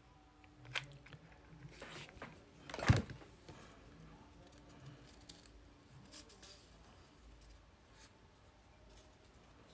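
Card stock rustling and crinkling as a coiled paper quilled rose is handled and pressed onto a glued paper base, with a few sharp clicks and one short, louder knock about three seconds in.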